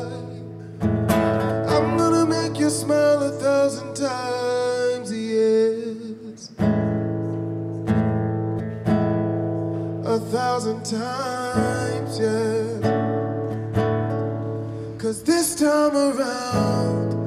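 A man singing a slow song to his own acoustic guitar, the guitar strummed with a pick and its chords ringing under the voice.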